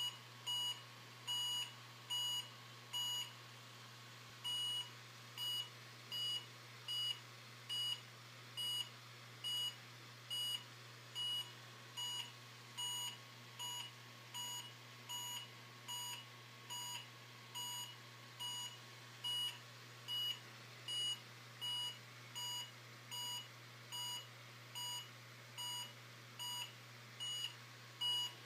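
Small speaker driven by a pulse meter's microcontroller, beeping a short square-wave tone once for each detected heartbeat. The beeps are regular, about 75 a minute, with one beat missing about four seconds in.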